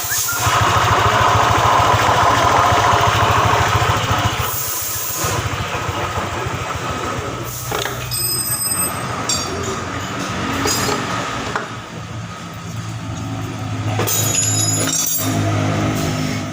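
Rough, grinding rumble from an automatic scooter's CVT as the scooter is rolled, loudest in the first few seconds and then steadier with a few light metallic clinks. It is the 'ngorok' (snoring) noise of a worn CVT bearing.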